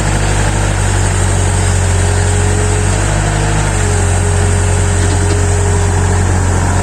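Excavator's diesel engine running, a loud, steady low drone.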